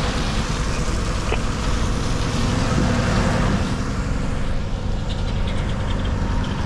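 Diesel engine of a road-train truck running as the truck moves slowly, heard from inside the cab, with a steady low rumble.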